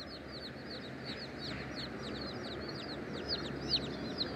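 Young chicks peeping: a continuous stream of short, high chirps that fall in pitch, several a second and overlapping.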